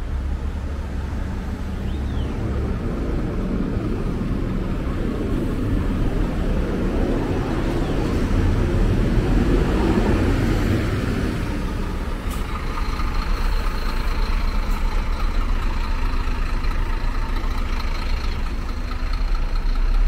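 Motor vehicle engine rumbling nearby, swelling louder around the middle as it passes. A steady high tone joins in about twelve seconds in.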